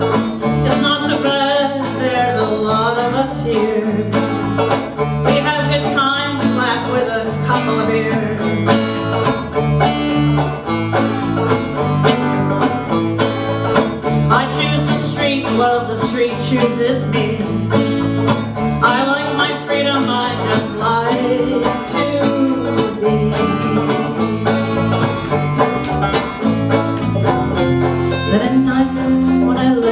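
Live country-bluegrass band music: picked banjo, electric guitar and electric bass playing together, with a steady repeating bass line under a bending melody.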